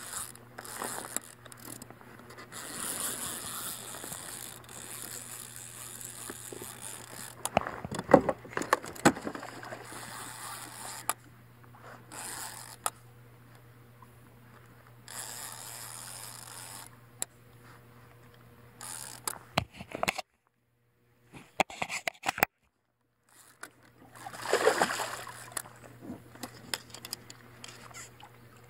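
Handling noise from fighting a largemouth bass from a kayak: irregular scrapes and knocks on the boat and water splashing, loudest about a third of the way in and again near the end as the fish is brought to the landing net.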